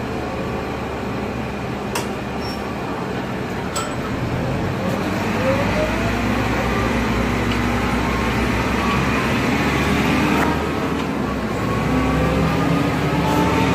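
2002 Nova Bus LFS diesel transit bus running under way, its engine and drivetrain whine climbing in pitch as it accelerates, once about five seconds in and again near the end, over a steady low engine hum.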